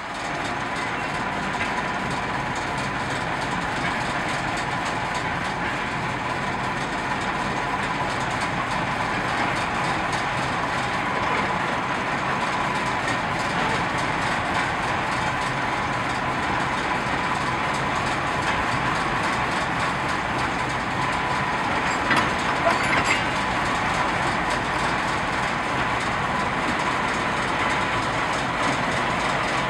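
Train on the move at slow speed, rolling stock running on the rails with a diesel locomotive engine running steadily. A few sharp knocks come about three quarters of the way through.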